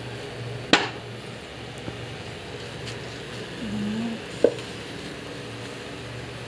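Cookware being handled: two sharp knocks with a short ring, one about a second in and one at about four and a half seconds, over a steady low hum.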